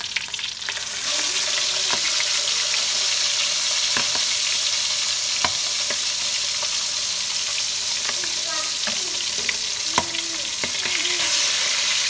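Pork frying in hot oil in a pan: a steady sizzle that grows louder about a second in, with scattered clicks of a utensil stirring against the pan.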